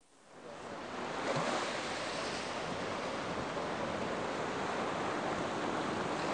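Ocean surf: waves washing in a steady rush of noise, fading in over the first second and then holding level.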